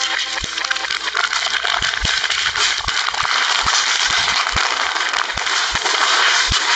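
Carbonated soda gushing and spraying out of plastic bottles being crushed in a shredder, played in reverse: a dense, rising hiss with a dozen or so irregular low thuds.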